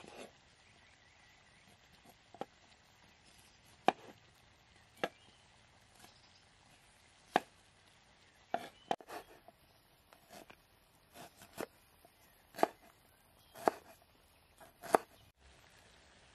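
Large knife chopping on a wooden cutting board: about a dozen single sharp chops, irregularly spaced about a second or two apart.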